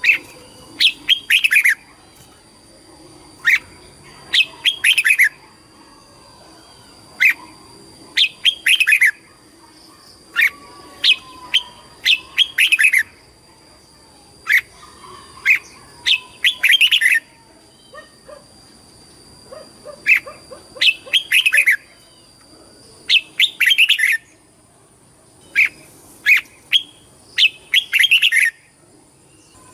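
Red-whiskered bulbul singing: short, bright, warbled phrases of a few quick notes, repeated every two to three seconds.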